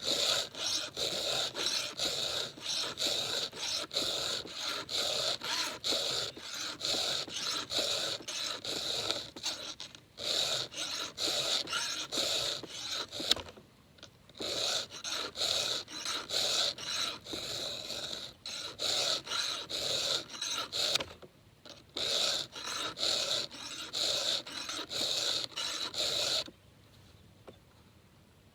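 A 7/32-inch round chainsaw file worked by hand across the cutters of a saw chain: quick rasping strokes, about two a second, with short breaks between teeth. The filing stops about two seconds before the end.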